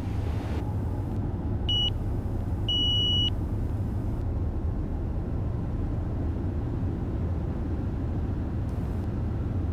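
Steady low cockpit rumble of a Gulfstream G200 jet on final approach with the landing gear just selected down. Two short electronic beeps sound about two and three seconds in, the second longer.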